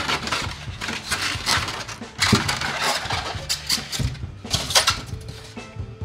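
Packaging rustling and knocking as a boxed sewing machine is handled and lifted out, in irregular scrapes with a few sharper bursts.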